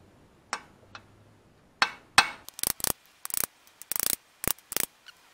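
Hammer striking a 22 mm socket held against a pilot bearing, tapping the bearing into the centre of the flywheel with sharp metallic knocks: a few single taps, then a quicker run of blows from about two and a half seconds in.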